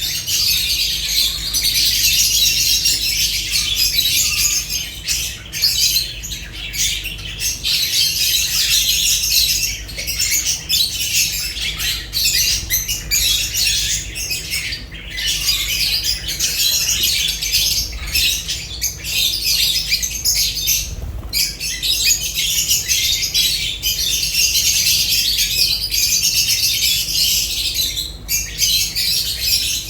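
A flock of lovebirds chattering continuously: dense, high-pitched squawks and chirps overlapping without a break.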